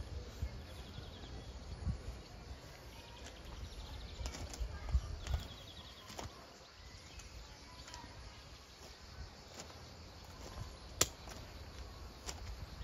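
Outdoor ambience among pine trees: a steady low wind rumble on the microphone, with a few short, faint chirping trills and scattered clicks.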